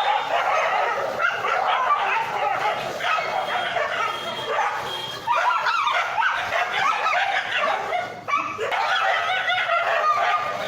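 Dogs in a fight, barking and yelping with high yips and whines, a dense run of calls that briefly drops away about five and eight seconds in.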